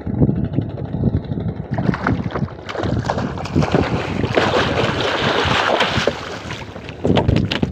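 A hooked marlin thrashing at the side of a small wooden boat, splashing the water hard. Several sharp knocks come near the end.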